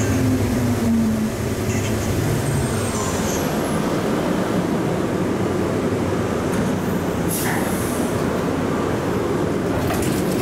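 Automated rubber-tyred people-mover train pulling into a station: a motor whine that dies away about a second in, then the steady rumble of the car, with a brief sharp knock about seven seconds in.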